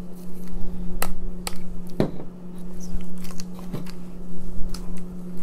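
A few sharp clicks and taps of a small 3.75-inch plastic action figure and its packaging being handled, over a steady low electrical hum.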